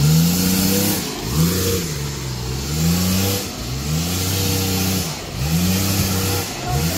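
Off-road 4x4's engine revving up and down over and over, its pitch rising and falling about every second and a half.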